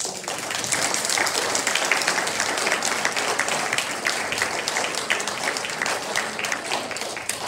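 Audience applauding in a large hall, many people clapping at once; it starts suddenly and thins out near the end.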